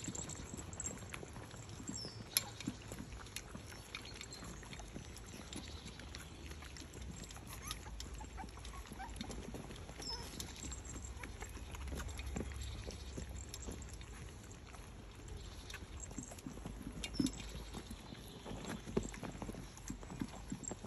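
Cavapoo puppies and dogs eating raw mince from a stainless steel bowl: scattered clicks and taps of mouths against the metal and paws on paving stones, over a low steady rumble.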